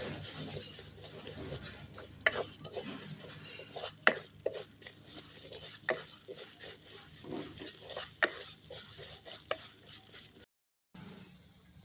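A wooden spatula stirs and scrapes split yellow lentils frying in a little oil in a clay kadai, the grains rustling against the earthenware. A few sharper knocks sound where the spatula strikes the pot.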